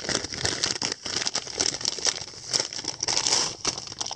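Packaging crinkling and crackling steadily as it is handled and opened by hand.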